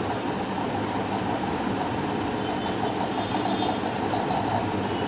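Steady rushing background noise with a low hum underneath, even in level throughout, with a few faint high ticks.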